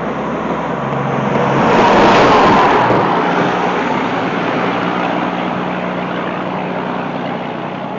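A motor vehicle passing close by, its tyre and engine noise swelling to a peak about two seconds in, then slowly fading.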